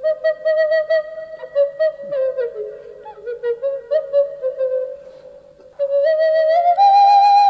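Instrumental background music: a solo flute melody with ornamented, sliding notes, which grows louder and climbs higher near the end.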